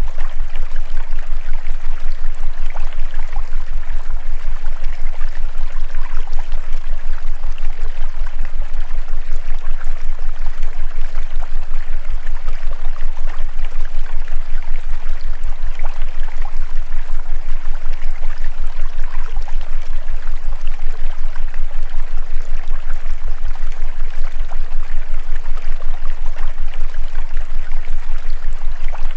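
Steady, loud rushing noise like running water, with a low hum that throbs rapidly underneath: the masking track of a subliminal-affirmation recording.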